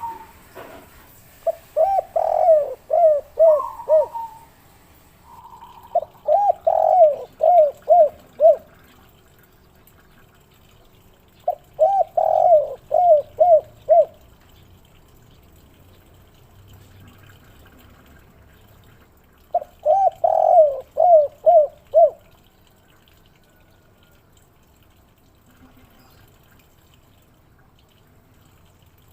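Spotted dove (derkuku/tekukur) cooing: four phrases of quick repeated coo notes, each a couple of seconds long, in the three-note-ending 'kuk 3' style, separated by pauses.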